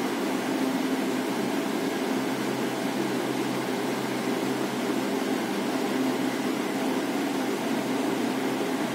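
A steady mechanical hum with an even hiss over it, unchanging and without any distinct clicks or knocks.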